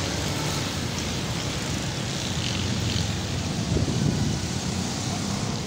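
Busy street traffic: a steady rumble of motorbike and auto-rickshaw engines, briefly louder about four seconds in.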